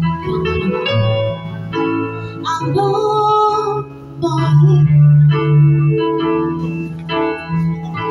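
Electronic keyboard on an organ sound playing held chords, with a woman singing over it into a microphone.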